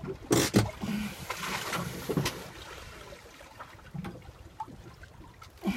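Sea water lapping and splashing against a small boat's hull, with two sharp knocks about half a second in.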